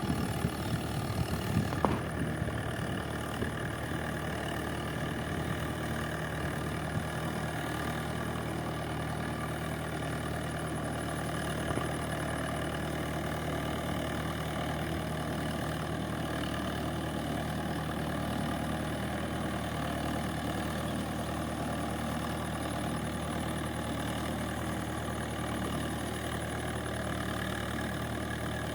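Mahindra 475 DI tractor's four-cylinder diesel engine running steadily under ploughing load, with a few sharp knocks in the first two seconds and another about halfway through.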